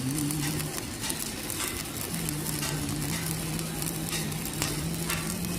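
Shielded metal arc (stick) welding arc, crackling and sizzling steadily as the rod burns. A steady low hum runs under it from about two seconds in.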